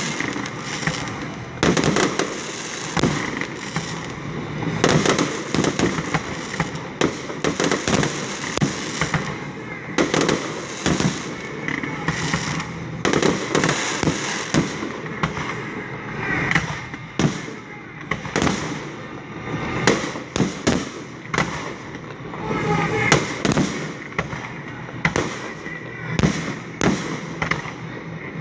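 Aerial fireworks display: shells bursting in frequent, irregular bangs, several seconds apart or in quick clusters, with crackling in between.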